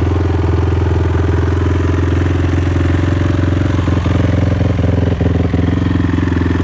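Honda TRX450ER quad's single-cylinder four-stroke engine running steadily just after starting, now firing reliably on a new ignition coil. A few faint ticks come through the engine sound about four to five seconds in.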